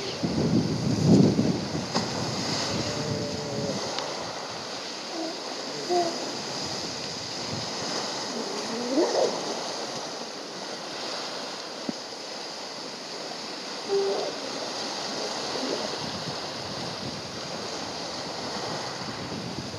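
Waves and surf washing steadily on a shore, with a louder rush of water about a second in. A few short, wavering tones come now and then.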